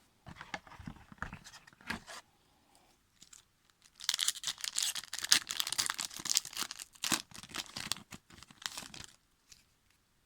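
Hockey card pack wrapper being handled, then torn open and crinkled: light rustles at first, then about five seconds of dense crackling from about four seconds in.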